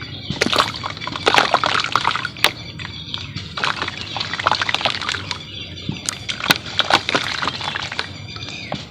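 Red mud crumbling into water: wet sloshing and splashing, with many small irregular crackles and clicks as the lumps break apart.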